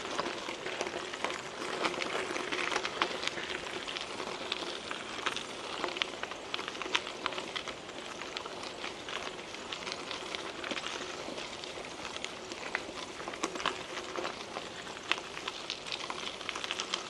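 Mountain bike tyres rolling over a gravel trail: a steady crackle and crunch, peppered with many small clicks and pops from loose stones.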